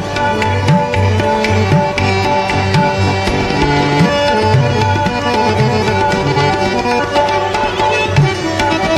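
Instrumental interlude of a live ghazal performance: tabla playing a steady rhythm, some low bass-drum strokes bending up in pitch, under a melodic accompanying instrument holding sustained notes.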